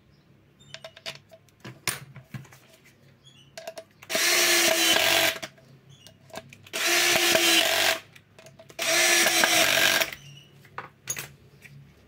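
Power drill driving a screw to fasten a washing machine's drain pump in place, run in three short bursts of about a second each with a steady motor whine.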